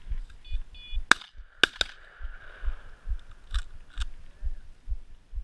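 Shotgun shots at a flushing pheasant: a sharp, loud shot about a second in, two more cracks half a second later in quick succession, then two fainter cracks near the four-second mark.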